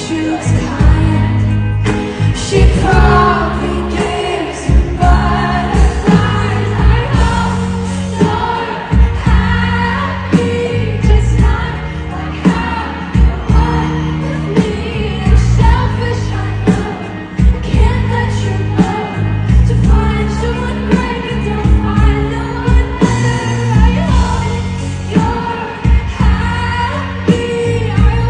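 Live pop music over a concert PA: a female lead vocal sings over a band with a steady beat, recorded from the audience.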